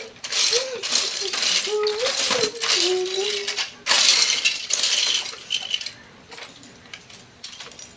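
Loose plastic Lego bricks clattering and clinking as a hand rummages through a pile of them, searching for a missing piece, in dense bursts that die down about five and a half seconds in. A thin, wavering whine runs alongside the rummaging.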